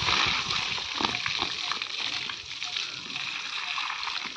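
Water from a garden hose spraying onto a calf and splashing on a brick floor: a steady hiss of spray with irregular splatter.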